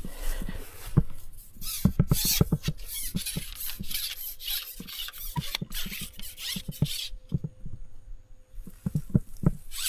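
Rustling with an irregular run of taps and clicks, densest about a second in and again midway, while a small snakehead that has just been hooked is brought in and handled.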